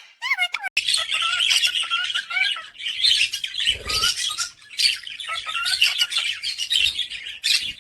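Pet parrots chirping and twittering in a dense, continuous chatter, opening with a few short whistled glides.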